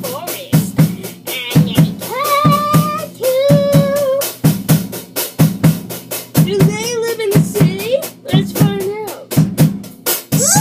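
Music with a steady drum-kit beat of bass and snare hits, and a melodic line held over it.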